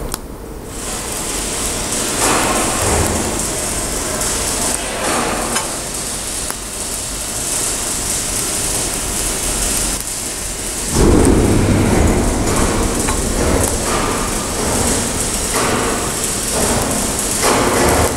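DC TIG welding arc joining mild steel to stainless steel: a steady hissing buzz that strikes up within the first second and holds, swelling and growing louder about eleven seconds in.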